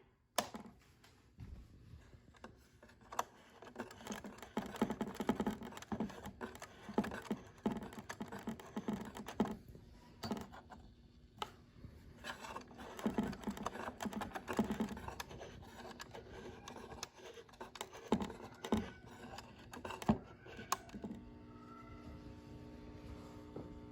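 1954 Emerson Model 788 vacuum-tube AM radio between stations: faint, irregular crackles and clicks of static, with a few steady tones coming in near the end just before a station's speech returns.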